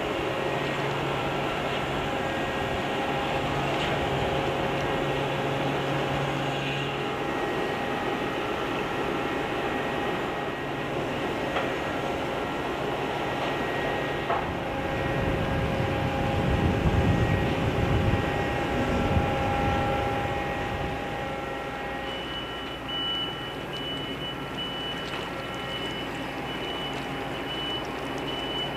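Steady hum of a berthed ferry's engines and generators, several steady notes over a noisy bed, with gusty wind rumbling on the microphone, loudest around the middle. Near the end the hum changes and a higher steady whine joins it.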